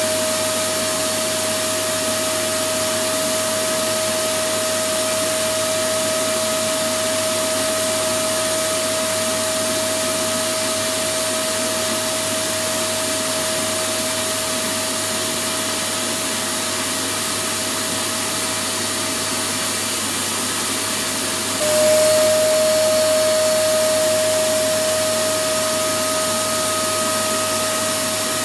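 Electric vacuum cleaner running steadily: a constant whine over a broad hiss. About 22 s in, the loudness steps up suddenly and the whine drops slightly in pitch, then it runs on steadily.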